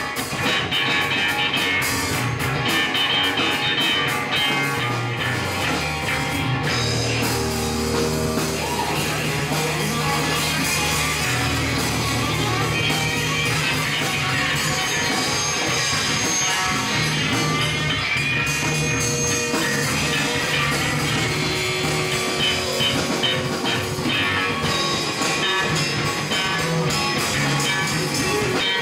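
Live blues-rock band playing an instrumental passage: two electric guitars through amplifiers over a drum kit.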